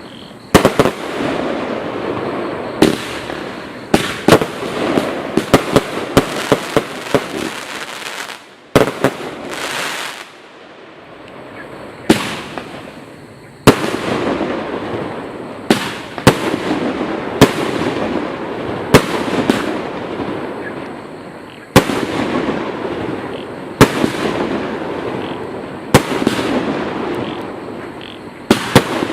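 Total FX Caged Jaguar firework cake firing, each shot a sharp report followed by a haze of burst noise. A rapid flurry of shots about four to eight seconds in, a short lull, then single shots roughly every two seconds.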